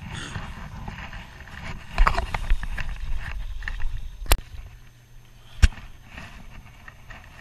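Rumbling handling and wind noise on a body-worn camera's microphone with scattered rustling, then two sharp clicks just over a second apart near the middle.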